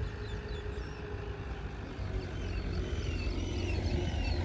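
Birds chirping over a steady low rumble, the chirps coming more often in the second half.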